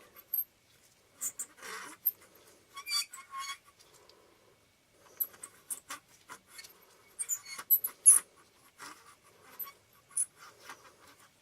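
Small parts of a disassembled AF Micro Nikkor 60mm f/2.8D lens being handled and worked at: irregular clicks, scrapes and short squeaks, with a sharper click about eight seconds in.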